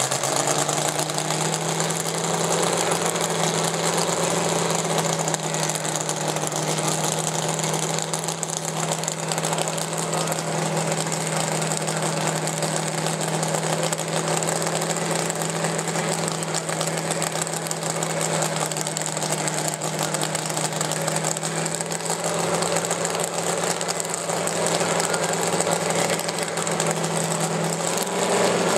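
Dragster's supercharged V8 idling steadily, with a low, even hum that holds the same pitch throughout.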